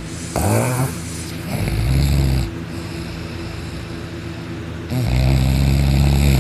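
A person snoring hard while asleep: three loud snores, the first short and rising in pitch, the second about a second later, and the last long and drawn out near the end, over a steady low hum.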